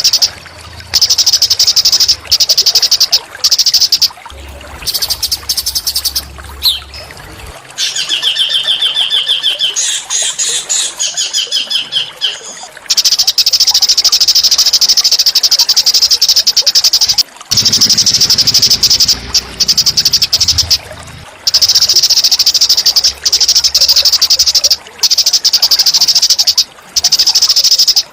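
A small songbird's high, rapid trilling song, in long fast runs broken by short gaps, with a stretch of repeated clear whistled notes in the middle.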